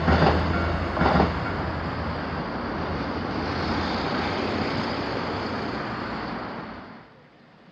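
A passing train at a Japanese level crossing: a couple of wheel clacks over rail joints, then the steady rumble and rush of the train, which fades and drops away about seven seconds in.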